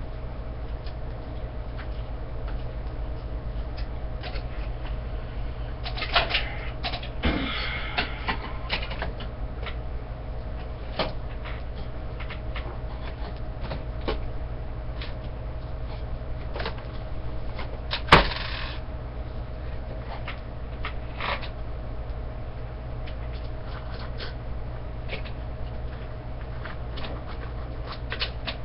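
Scattered clicks and light clanks of a Supersonic SC-603 TV antenna's aluminium elements and plastic motor housing being handled and fitted together. A cluster of rattles comes about six to nine seconds in and one sharp knock about eighteen seconds in, over a steady low hum.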